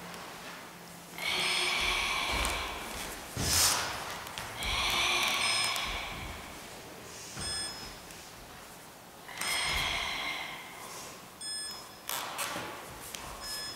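Forceful, hissing exhalations of Sanchin kata breathing, three long breaths of a second or more each. A single sharp smack about three and a half seconds in is the loudest sound, and lighter smacks come near the end.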